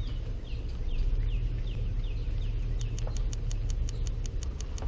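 Low, steady rumble of a car driving slowly with a boat trailer in tow. Over it, a short high falling chirp repeats a little over twice a second through the first half, then gives way to quick faint high ticks.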